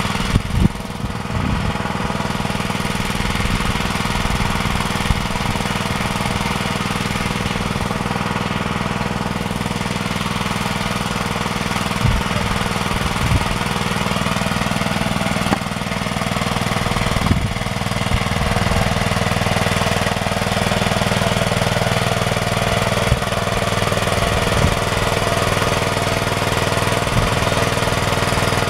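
Homemade mini tractor's small engine idling steadily with a rhythmic knocking beat, with a few sharper knocks along the way.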